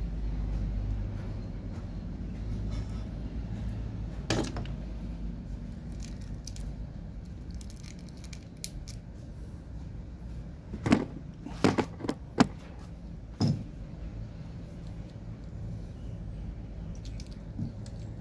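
Metal parts of a LiFePO4 cell being handled during teardown, clinking and knocking against each other and the table: a single sharp click about four seconds in, then a cluster of clicks around eleven to thirteen seconds in, over a steady low hum.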